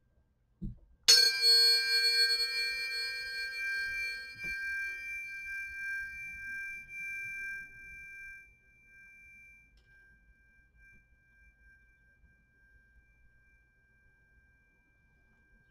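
A pair of Fibonacci-series tuning forks struck about a second in, just after a soft thud: a bright metallic strike, then two high pure tones ringing together and slowly fading. The higher tone dies away after about eight seconds while the lower one lingers faintly.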